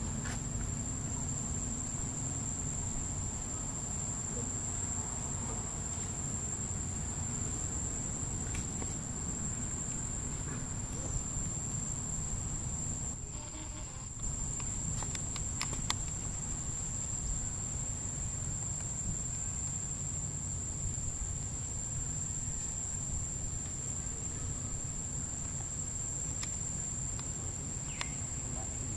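A steady, high-pitched insect drone of crickets or cicadas, unbroken throughout, over a low rumble of background noise with a few faint clicks.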